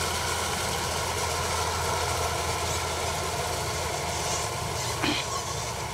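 Combine harvester running steadily while cutting wheat: a constant low engine hum under a broad, even mechanical rush. A brief sharp sound cuts through about five seconds in.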